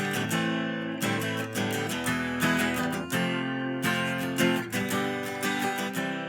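Acoustic guitar strummed in a steady rhythm of chords, an instrumental gap between sung lines.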